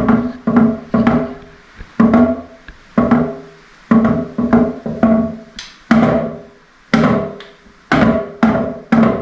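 Drum pad on an interactive museum exhibit struck with a pair of wooden drumsticks, single and double hits about once a second, each hit ringing briefly and dying away.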